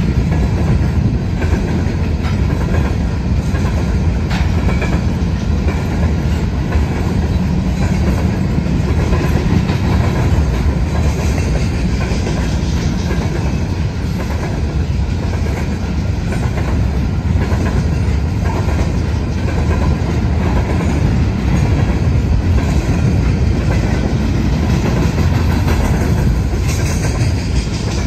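Covered hopper cars of a freight grain train rolling past: a steady rumble with a constant run of wheel clacks on the rails.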